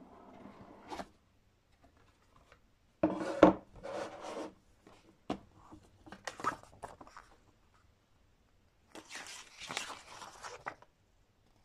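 Cardboard game box and paper being handled: scraping and rustling in several short bouts, with a few sharp clicks, as the box is opened and its rulebook slid out. The loudest scrape comes a little after three seconds in.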